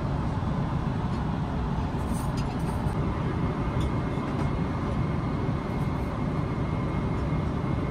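Steady cabin roar of a Boeing 777-300ER airliner in flight: jet engine and airflow noise heard from inside the passenger cabin, an even rumble with a faint steady whine above it.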